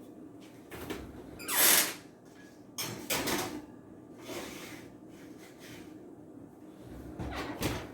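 Oven door and baking sheet being handled: a series of separate knocks and scrapes. The loudest is a short scraping rush about a second and a half in, and a last knock comes near the end.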